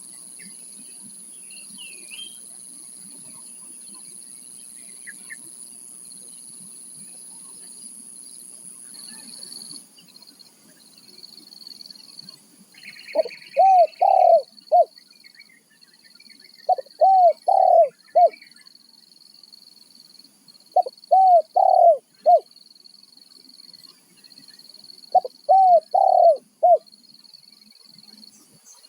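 Spotted dove (tekukur) cooing: four phrases of three to four notes each, about four seconds apart, starting about halfway through. Insects keep up a steady high buzz behind the calls.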